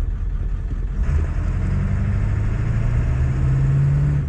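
Ford 7.3 L Powerstroke V8 turbodiesel in a 1995 F350, heard from inside the cab while driving, over road noise. About a second in, the engine note starts to rise steadily as the truck accelerates, then drops away near the end.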